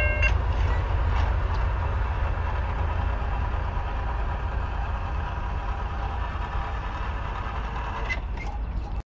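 Steady low outdoor rumble that slowly fades, with a faint hum and a few light clicks over it. A chiming multi-tone sound cuts off just after the start.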